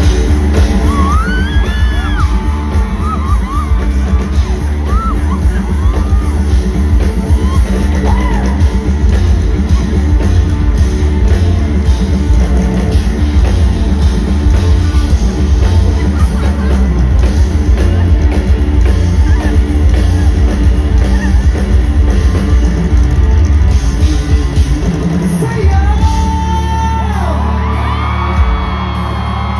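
Loud live rock band playing through a concert sound system with heavy bass, and the crowd singing along, yelling and whooping. About 26 seconds in the bass changes and the crowd's voices come up louder.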